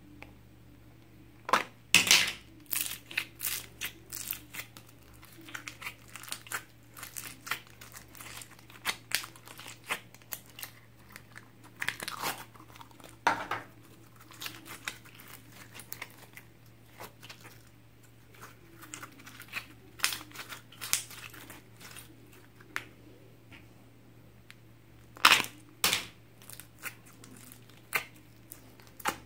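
Slime being squeezed and pulled by hand, with plastic slime tubs handled: a continuous run of sticky clicks, crackles and pops, a few louder ones about two seconds in, around twelve to thirteen seconds and near twenty-five seconds. A faint steady low hum lies underneath.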